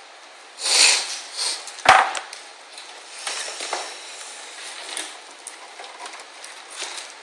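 Handling noise from computer parts being moved about: rustling and small clicks, with one sharp knock about two seconds in.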